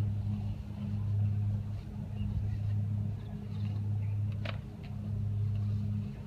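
A steady low machine hum that swells and eases slightly in level, with a single short click about four and a half seconds in.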